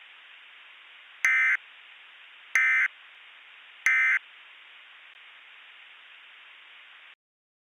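Emergency Alert System end-of-message signal: three short warbling digital data bursts of the SAME code, evenly spaced about a second and a half apart, marking the close of the alert. A steady hiss lies underneath and cuts off suddenly near the end.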